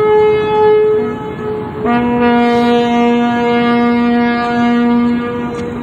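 Ships' steam whistles sounding long steady blasts in salute. One whistle sounds until nearly two seconds in. A deeper whistle then starts abruptly and holds for about three and a half seconds.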